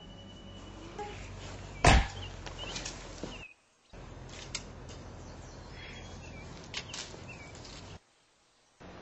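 A single sharp thud about two seconds in over a steady background hiss, followed by a few light clicks and short high chirps. The sound drops out to dead silence twice.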